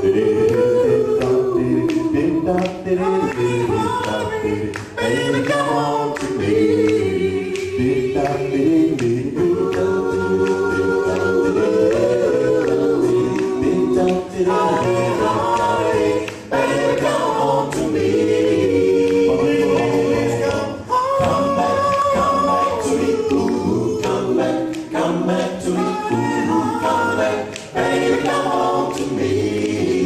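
Male doo-wop vocal group singing a cappella, four voices in close harmony with no instruments.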